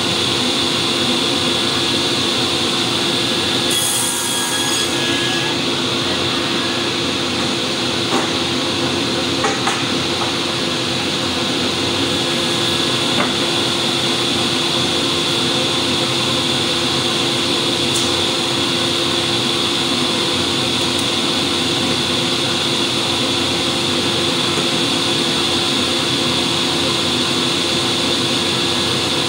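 SCM sliding table panel saw running steadily, a constant hum with a high whine from the spinning blade and motor. A short hiss comes about four seconds in as the blade bites into the board.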